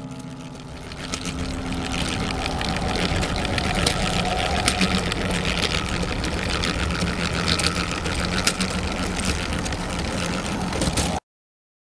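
Plastic Strandbeest walking model's legs and crank linkages clattering in a fast, even rattle of small clicks as it walks across a tabletop, over a steady low hum. It cuts off suddenly near the end.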